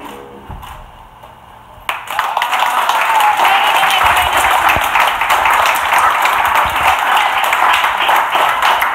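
Audience clapping and applauding, starting suddenly about two seconds in, after a few last faint notes of music.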